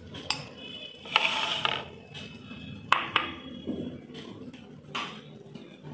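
A spoon clinking and scraping against a glass bowl while pea curry is served: a few sharp clicks and several short scrapes, the longest about a second in.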